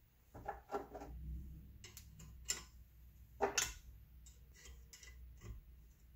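Scattered small metallic clicks and taps of a valve spring compressor and valve keepers being worked on a Chevy 454 big-block cylinder head, with a quick cluster near the start and the loudest pair about three and a half seconds in. A low steady hum runs underneath.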